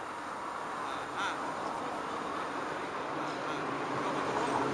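Tram approaching, its running noise growing steadily louder, with a brief sharp sound about a second in.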